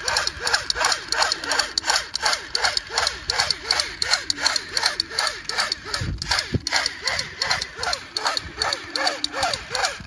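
Toy assault rifle's electronic gunfire sound effect, a rapid machine-gun rattle of short falling chirps at about four shots a second, with a knock about six seconds in.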